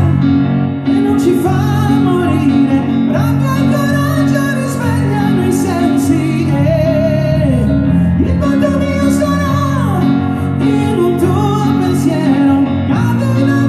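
A man singing a slow song live in a high voice with vibrato, accompanied by held chords on an Orla electric keyboard. The chord changes near the end.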